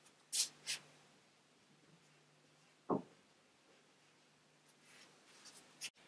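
Marker pen squeaking on a whiteboard in two short strokes, then a single short thump about three seconds in.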